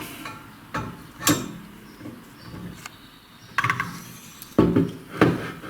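Several separate sharp metallic knocks and clicks from handling the tooling of a valve seat cutting machine, with quiet gaps between them.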